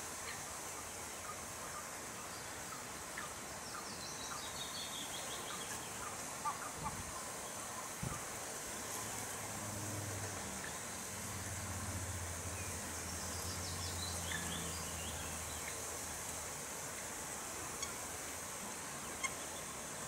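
Outdoor birdsong and calls over a steady background hiss: a songbird twice gives a short descending trill, and short calls come from barnacle geese. A low hum rises in the middle and fades, and a few soft knocks come early on.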